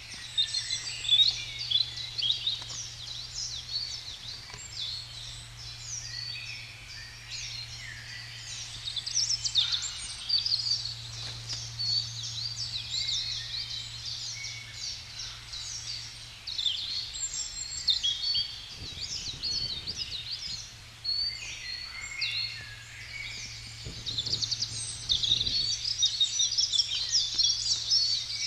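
Woodland songbirds singing together, many quick chirps and trills overlapping throughout, over a steady low hum.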